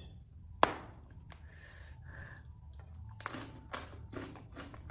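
A long raw green gourd snapped in two by hand, with one sharp crack about half a second in. Several crisp, crunchy snaps follow in the second half.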